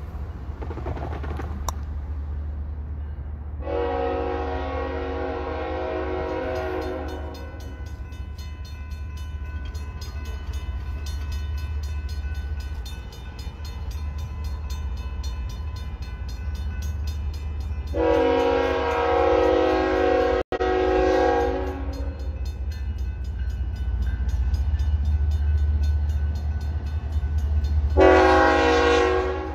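Diesel freight locomotive's air horn sounding the grade-crossing warning as the train approaches: two long blasts about 14 s apart, then a third starting near the end. Grade-crossing bells ring steadily underneath, with a low rumble throughout.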